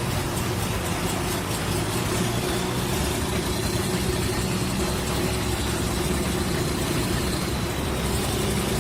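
Logging truck engine running steadily, an even low drone with no revving.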